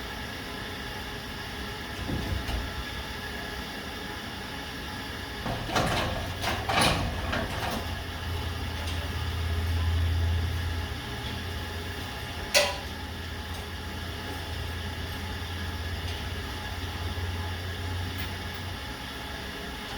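Scattered knocks and rattles and one sharp click over a steady low hum, with a low rumble swelling through the second half.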